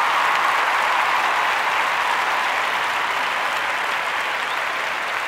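Audience applauding steadily at the end of a live song recording.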